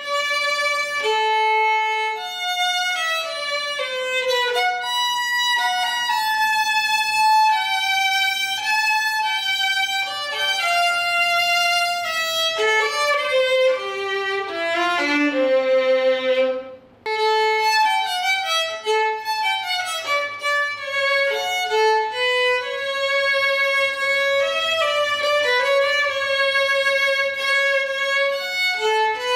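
Solo violin played with the bow: a melody of mostly long, held notes, with one brief stop a little past halfway.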